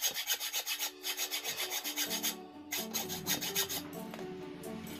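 Hand hacksaw cutting through a metal motorcycle brake master cylinder held in a vise, shortening it: quick rasping strokes of the blade on metal. The sawing breaks off briefly about halfway through, resumes, and fades out near the end.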